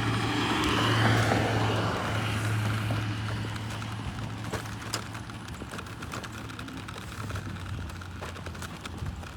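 A vehicle passing by: its noise swells about a second in and fades away over the next few seconds, over a steady low hum.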